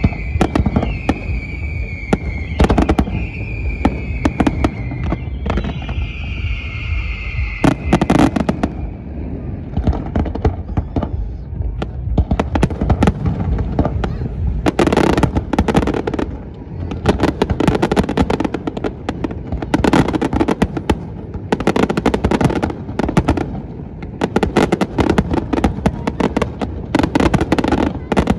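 Aerial fireworks display: a dense barrage of shell bursts and crackling, with a high whistling tone falling slowly in pitch for about the first eight seconds, then near-continuous bangs in quick succession.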